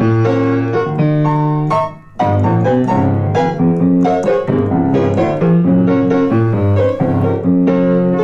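Instrumental piano music playing chords over a moving bass line, with a brief break about two seconds in.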